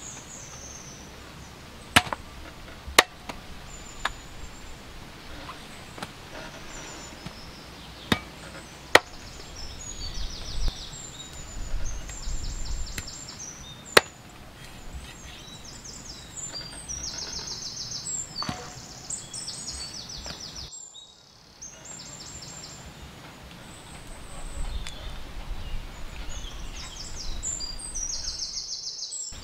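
Machete chopping a plucked whole duck on a wooden stump chopping block: sharp single whacks a second or more apart, about eight of them, with the last about two-thirds of the way through.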